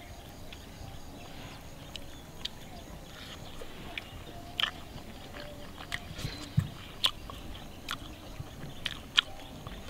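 A person eating griddle-roasted chicken wings, biting, chewing and pulling the meat off the bone in short sharp clicks and smacks. The louder ones come in the second half.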